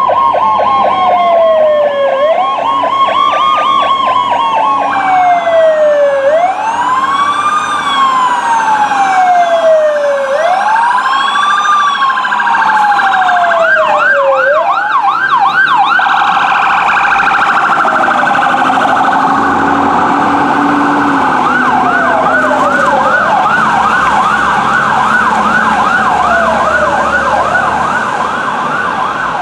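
Electronic sirens on responding fire apparatus, overlapping: a wail that rises quickly and falls slowly about every four seconds, switching to a fast yelp around the middle and again near the end, over a steady high tone.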